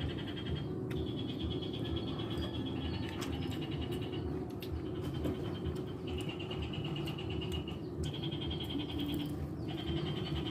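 A high, rapidly pulsing animal trill, repeated in bursts of a second or so with short breaks, over a steady low noise.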